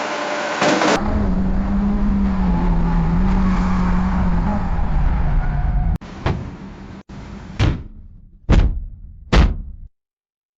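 Car accident sound effects: a sudden impact about a second in, then a steady rumbling noise with a low wavering hum that cuts off abruptly about six seconds in. A click follows, then three heavy thuds about a second apart.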